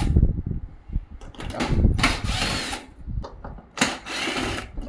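Cordless power drill or screwdriver driving out the screws of an air conditioner outdoor unit's cover panel, in short runs of whirring, twice, with a whine that rises and falls.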